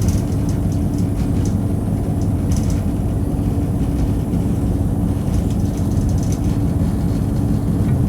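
Steady low rumble of a moving vehicle with a constant low hum, and a few faint clicks and rattles.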